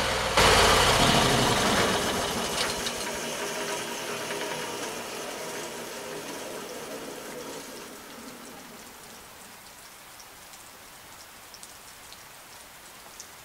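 Portable sawmill's engine and blade running loud, then winding down and fading out over several seconds. Steady rain remains, with scattered drips.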